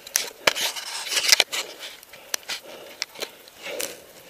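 Snowboards scraping and crunching through powder snow, in irregular bursts with sharp crunches.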